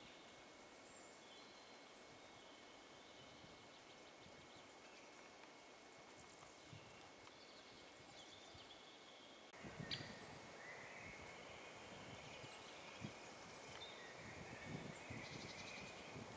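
Near silence: faint woodland ambience with distant small birds calling. About ten seconds in the background grows a little louder, with a few soft knocks and rustles.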